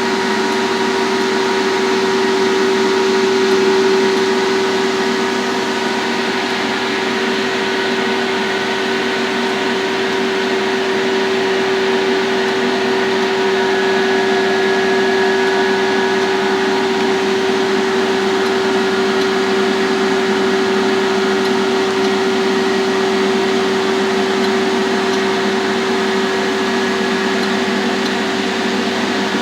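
BMI 621D Nd:YLF laser system running under test: a steady machine hum and hiss with a constant mid-pitched tone and fainter higher tones, unchanging throughout.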